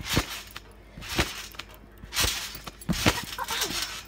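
Someone bouncing on a trampoline: the mat thuds with each landing, about once a second, with two landings close together near the end.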